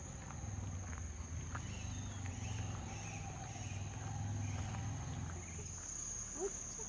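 Steady high-pitched drone of insects such as cicadas or crickets, over a low hum that swells and fades in the middle, with faint footsteps of the walker on a wet road.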